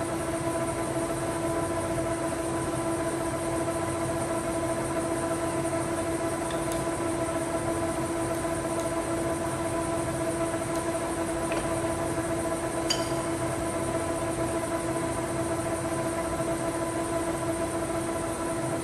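1981 LeBlond 26-inch hollow-spindle engine lathe running at a steady spindle speed, its headstock gearing giving a steady whine that holds one pitch throughout.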